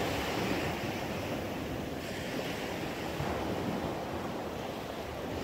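Waves washing onto the beach, a steady surf noise that swells and eases slightly, with wind on the microphone.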